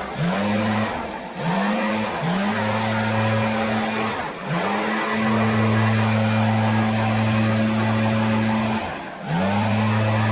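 A small engine running steadily, dipping briefly about four times and revving back up in pitch each time, as if bogging under load and recovering.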